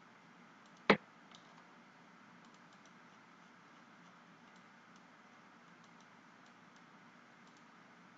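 Faint clicks of a computer mouse and keyboard over a low room hiss, with one sharp, loud click about a second in.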